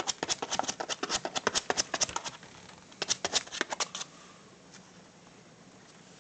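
Puppy's claws scratching rapidly at a cardboard box, digging at it, in two quick bouts that stop about four seconds in.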